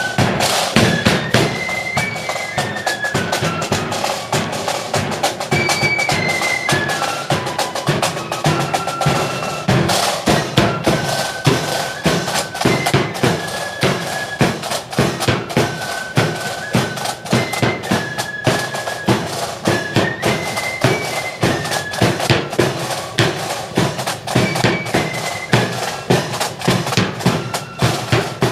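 Marching flute band playing a tune in unison, the high flutes carrying the melody over a steady marching beat of snare and bass drums.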